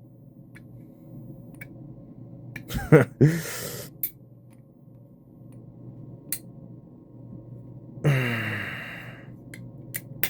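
A man's short grunt and breathy exhale about three seconds in, and a drawn-out falling sigh about eight seconds in. A few light clicks come in between, from an Edwards 270 fire alarm pull station being reset.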